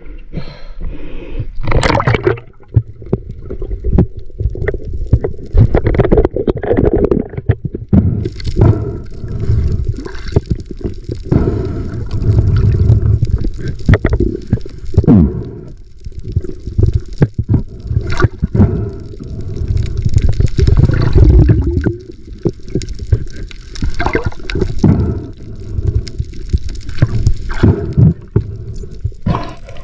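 Sea water sloshing and gurgling in irregular surges, with scattered knocks.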